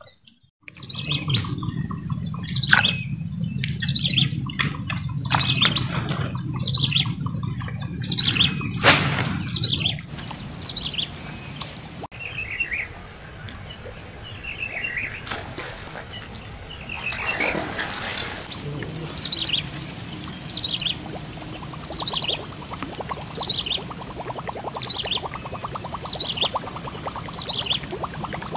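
Outdoor insect ambience: a steady high shrill from insects, with a bird repeating a short, falling chirp about once a second.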